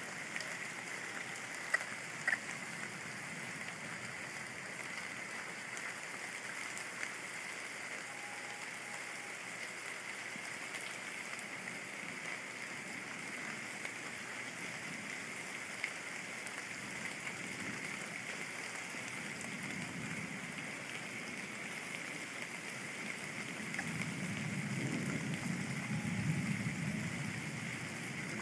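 Steady rain falling at night, a continuous hiss with a few sharp drip ticks. Near the end a low rumble of thunder builds up under the rain.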